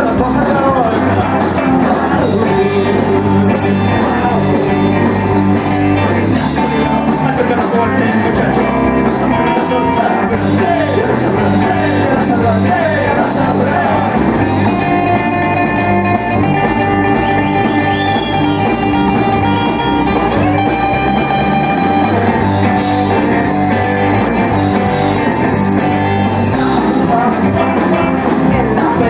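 A rock and roll band playing live on electric guitars and a drum kit, with a steady drumbeat under the guitars.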